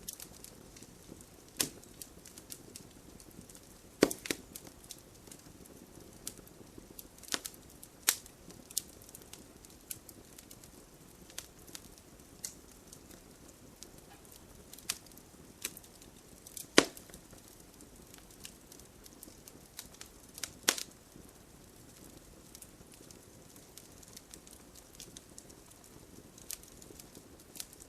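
Wood fire crackling in a fireplace: irregular sharp pops and snaps over a faint steady hiss, with a few much louder snaps scattered through.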